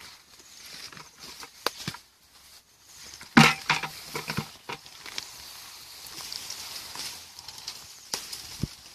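Hands and boots working in a shallow muddy stream: scattered splashes, squelches and rustles, with one louder splash about three and a half seconds in followed by a few quick smaller knocks.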